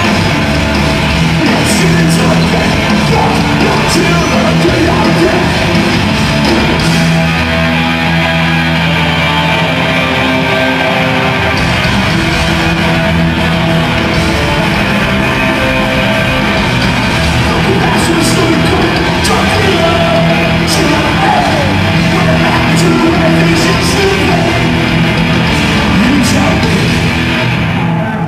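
Hardcore punk band playing live in a large hall: distorted electric guitars, bass and pounding drums with cymbal crashes, under vocals. The music eases off near the end.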